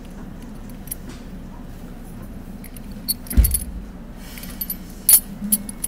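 Miniature metal dishes and dome lids clinking against each other as they are lifted off and set down: a cluster of clinks with a dull knock about three seconds in, and more near the end. Under it runs the steady rumble of a subway train.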